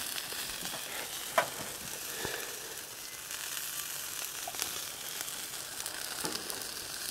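Sausages sizzling on a grill net over a wood fire, with a fine crackle, and a single sharp metallic click about a second and a half in.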